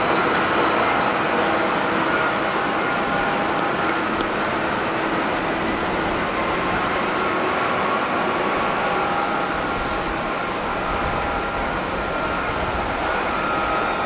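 Jet engines of an Airbus A350 airliner at takeoff power as it climbs away. The sound is a steady roar with several held whining tones and fades slightly.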